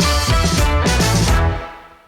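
Short musical segment jingle: band music with heavy bass and drum hits, fading out over the last half second.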